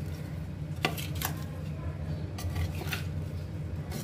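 A spoon stirring chunks of raw mango and carrot coated in ground spices in a terracotta bowl. The pieces scrape and rattle, and the spoon makes a few sharp clicks against the clay, over a steady low hum.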